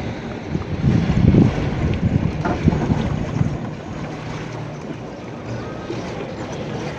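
Wind rumbling on the microphone aboard a small electric boat under way, with water noise beneath; a louder gust about a second in.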